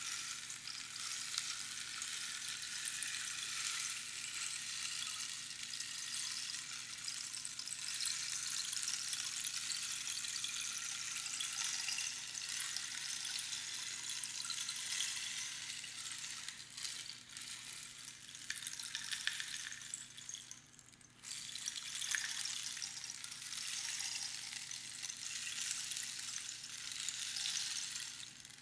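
Rainstick: pebbles or seeds trickling down through the pins inside the hollow tube, making a continuous rain-like patter. The patter thins out briefly about two-thirds of the way through, then picks up again.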